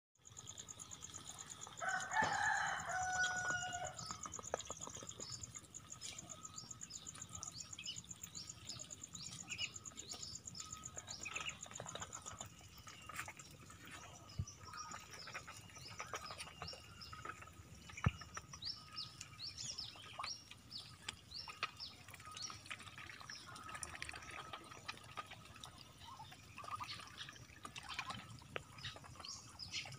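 A rooster crows once, about two seconds in, over the steady chirping of small birds. A high, fast-pulsing buzz runs through the first dozen seconds, and scattered light taps come and go.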